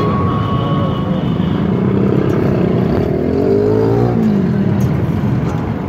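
Steady din of road traffic engines, with one engine revving up and back down about three and a half seconds in.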